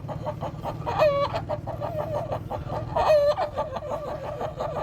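A man's voice imitating a hen: quick runs of clucks broken by two long calls that fall in pitch, about a second in and again near three seconds. It is the call a hen gives going into and coming out of her coop.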